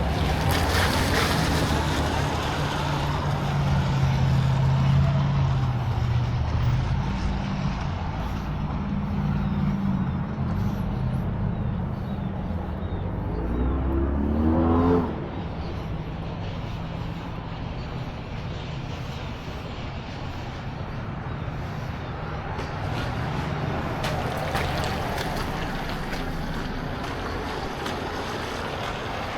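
Motor vehicle engines running close by, with a low steady drone. About halfway in, one engine's pitch rises sharply, then the loudest part cuts off and a quieter traffic din carries on.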